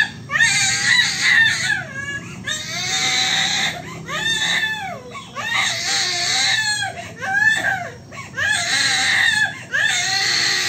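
A baby crying hard: a string of high wails, each about a second long, with short gasps between.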